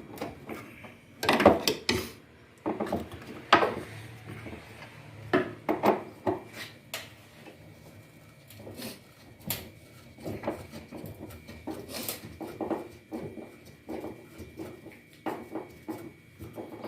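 Irregular metallic clinks, clicks and knocks of a 10 mm socket wrench working the bolt of a washing machine's shock absorber, loudest near the start.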